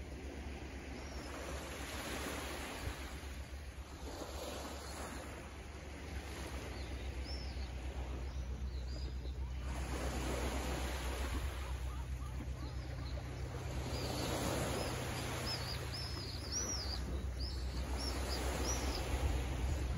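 Small waves lapping gently on a rocky shore in slow swells. A bird chirps in short, curving high calls, a few about a third of the way in and a quick run of them near the end. A low steady hum lies underneath.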